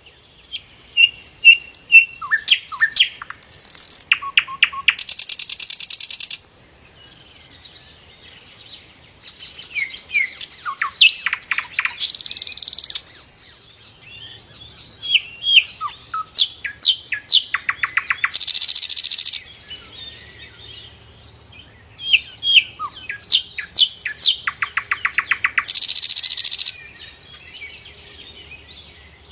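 Grey-headed canary-flycatcher (sikatan londo) singing in four bouts a few seconds apart. Each bout is a run of short, sharp chirping notes ending in a fast rattling trill.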